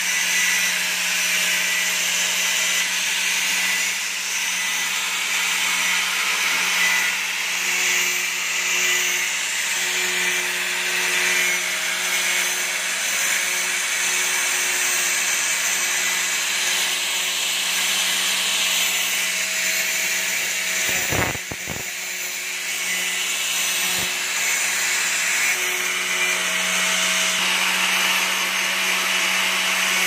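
Electric angle grinder running steadily and grinding metal: a constant motor hum under the hiss of the disc on the workpiece. The sound dips briefly with a few clicks about two-thirds of the way through. A three-wheeler clutch part is being ground down to ease the too-tight fit of its bearing.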